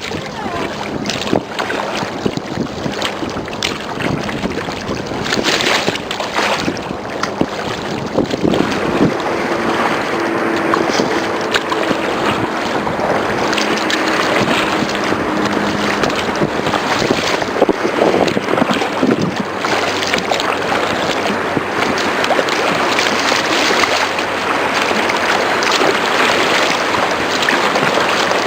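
Waves and surf washing on the beach, with wind buffeting the microphone, growing louder about a third of the way in.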